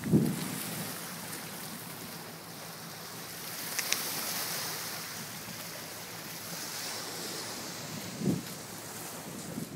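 Small waves breaking and washing up on a sandy beach, with wind buffeting the microphone: a low bump of wind right at the start and another near the end.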